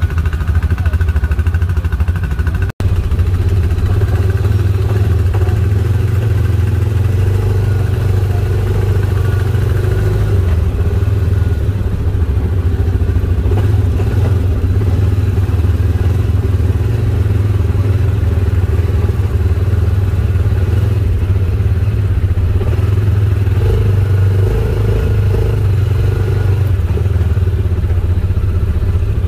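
ATV (four-wheeler) engine running steadily during a ride, with a brief cut-out of all sound about three seconds in.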